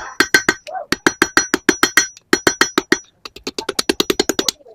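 Hand hammer striking hot steel on an anvil in quick, even blows, about six a second, in four runs with short pauses, the anvil ringing under each blow: drawing out a tapered point in the metal.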